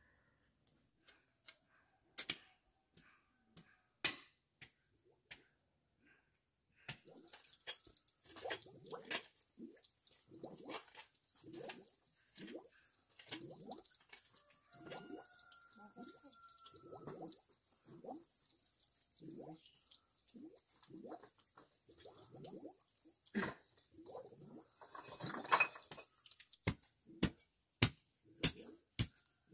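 Hoe chopping into dry, crumbly soil to dig a trench, about one stroke a second, starting about a quarter of the way in. Before that there are only a few scattered sharp clicks.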